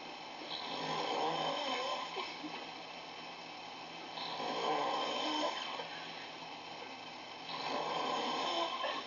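A sleeping man snoring: three long snores, each about a second and a half, coming about every three and a half seconds.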